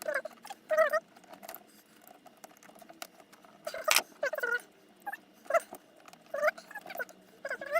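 Small clicks and taps from handling small parts and bolts, mixed with about eight short squeaks whose pitch wavers.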